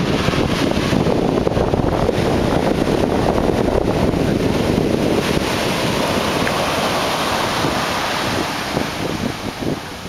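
Large ocean waves breaking close to shore and whitewater rushing up the sand: a continuous crashing surf noise that eases off near the end.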